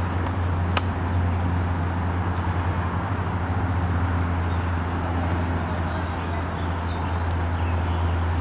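Steady low hum of outdoor background noise, with one sharp click about a second in and a few faint high chirps later on.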